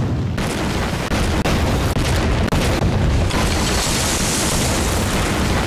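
Film sound effect of a large explosion: a loud blast that carries on as a long, dense rumble, with a brighter hiss rising about three and a half seconds in and easing off near the end.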